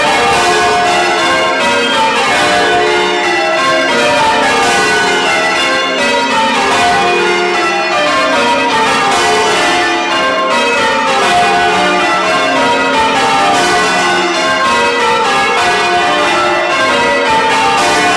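Church bells being change rung, heard loud and close in the bell chamber. They strike in quick succession, each run stepping down in pitch from the highest bell to the lowest and repeating over and over.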